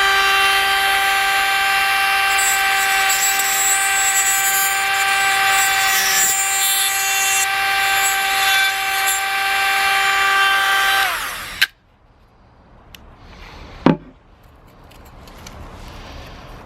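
Dremel rotary tool running at a steady high speed with a constant whine, cutting into the plastic GoPro housing. About eleven seconds in it is switched off and its pitch falls as it spins down, followed by a click and, a couple of seconds later, a single sharp knock.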